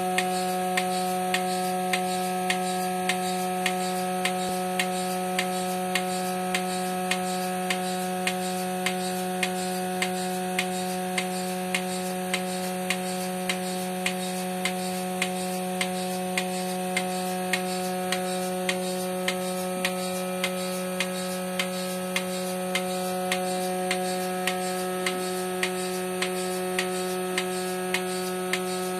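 Portable bucket milking machine running during milking: the vacuum pump motor hums steadily, and the pulsator clicks in an even rhythm of about three clicks every two seconds.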